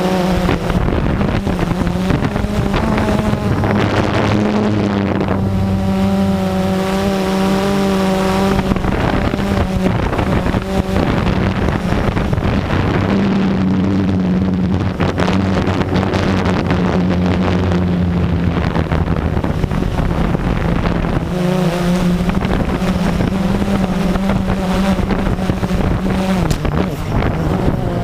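Blade 350QX quadcopter's four brushless motors and propellers droning steadily in flight, the pitch shifting up and down with throttle, with some wind noise.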